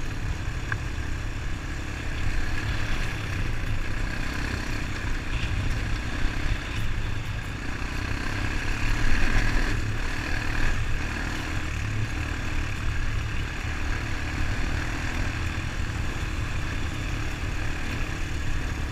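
Single-cylinder Honda ATV engine running steadily under way, with wind noise over the microphone. The sound swells briefly about halfway through.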